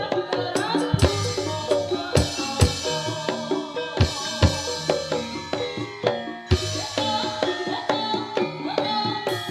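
East Javanese Senterewe (jaranan) dance music played live: an instrumental passage of layered pitched percussion with sharp hand-drum strokes cutting in every second or two, the singing paused.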